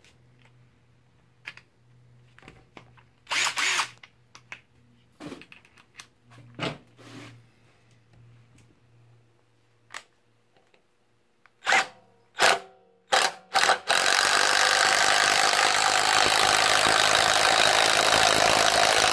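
Bauer 20V cordless 1/4 in. hex impact driver driving a lag bolt: light handling clicks and a few short trigger bursts, then about five seconds of continuous hammering. The lag bolt snaps off, the third one this driver has broken.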